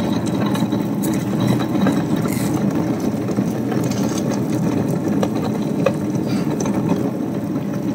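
Tabletop wet grinder running steadily, its two roller stones turning in the rotating drum as they grind soaked sorghum into batter, with faint scattered ticks over the even machine noise.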